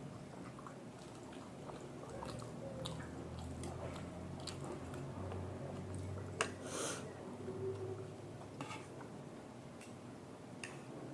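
Close-miked chewing of chowmein and momos, with scattered wet mouth clicks and one louder sharp click about six and a half seconds in.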